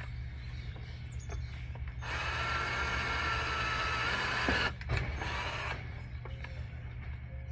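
Power drill running for almost three seconds, stopping, then running again briefly for about a second.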